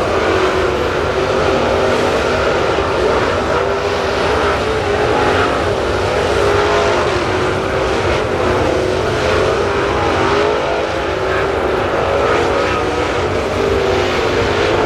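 Dirt-track race car engines running hard on the track, with engine notes that waver up and down without letup.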